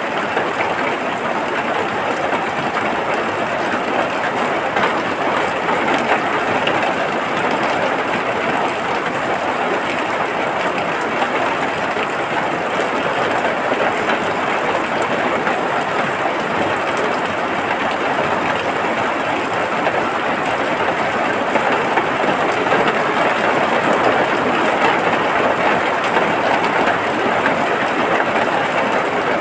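Steady heavy rain: an even, unbroken rush of falling water.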